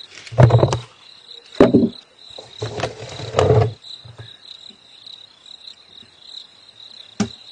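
A cricket's steady, high-pitched chirring goes on throughout, broken by several dull thumps and knocks, the loudest about half a second, a second and a half and three and a half seconds in, with a sharp knock near the end.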